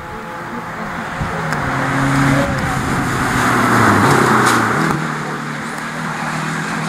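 Renault Super 5 rally car engine at full throttle, approaching and passing close by, loudest about four seconds in, with the pitch stepping through gear changes before it moves away.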